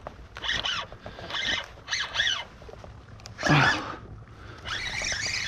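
Spinning reel's drag buzzing out in about five short spurts as a hooked small jack crevalle pulls line.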